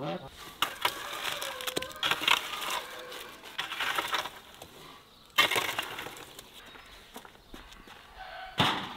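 Crackling and scraping as a wooden pole rakes burning embers inside a brick oven, in a run of clicks and noisy bursts, the loudest about five and a half seconds in.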